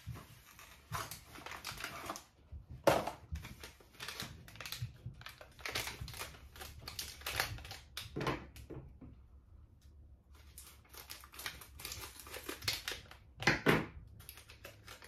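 Mochi packaging being opened and handled: a cardboard box and a clear plastic tray crinkling and crackling irregularly. There are louder crackles about three seconds in and again near the end, with a short lull in the middle.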